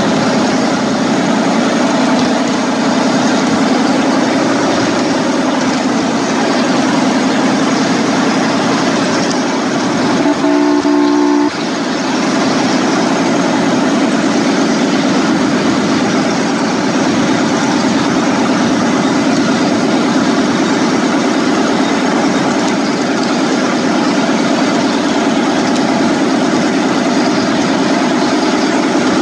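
Ride-on miniature electric locomotive running along the track, a steady rumble of motor and wheels on rail. About a third of the way in, a horn blows once for about a second.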